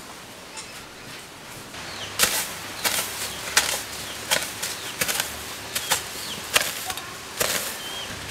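A hoe chopping into earth in steady strokes, a little under one and a half a second, starting about two seconds in, with faint bird chirps between the strokes.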